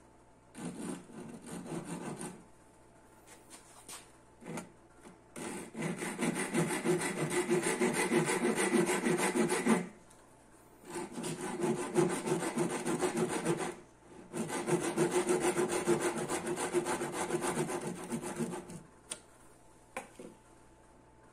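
Japanese-style handsaw cutting through a wooden dowel with quick back-and-forth strokes: a short run a second in, then three long runs of sawing with brief pauses between them. A couple of light knocks near the end.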